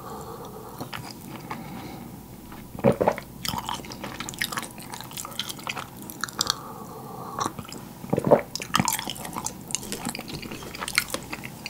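Close-miked sipping and swallowing of black tea from a small glass cup, mixed with wet chewing and mouth clicks, with a few louder strokes along the way.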